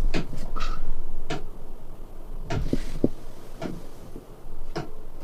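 A series of irregular sharp clicks and knocks, about a dozen, over a low steady hum.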